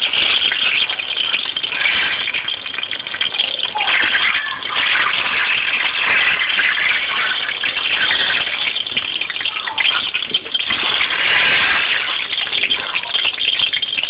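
Hot oil sizzling steadily in a stainless steel pot as small whole onions and garlic cloves flash-fry on high heat.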